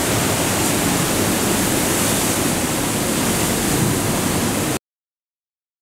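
Loud, steady roar of heavy surf from large typhoon-driven waves pounding a rocky coast. It cuts off suddenly about five seconds in.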